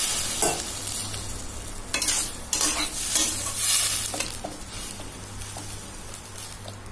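Bottle gourd and chickpea curry sizzling in a steel kadai just after a splash of water hits the hot oil, the sizzle fading as it goes. A flat metal spatula stirs and scrapes against the pan several times.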